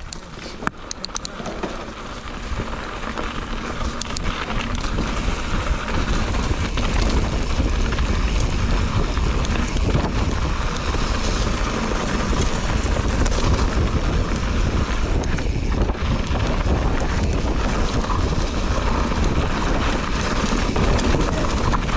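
Wind buffeting the action camera's microphone, mixed with the rumble of a mountain bike's tyres rolling fast down a dirt trail. It builds over the first few seconds and then holds steady.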